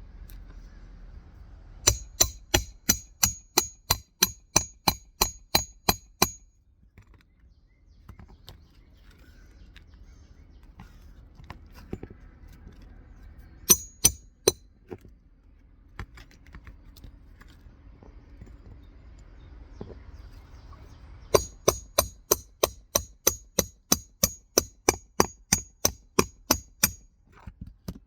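Hammer driving roofing nails to fasten a replacement asphalt shingle: three runs of quick, evenly spaced ringing strikes, about four a second, with a short run in the middle.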